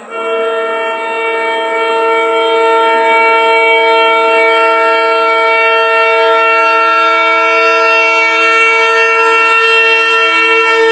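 Diesel locomotive's horn sounding one long, unbroken blast as the train approaches the station at speed.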